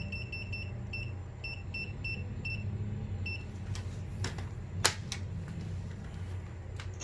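Digital airflow meter (anemometer) beeping as its buttons are pressed to reset it: about ten short, high beeps in quick irregular runs over the first three seconds, then a few sharp clicks from handling.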